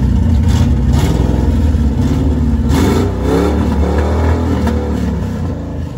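Car engine running with a deep rumble, revving up and back down about three to four seconds in.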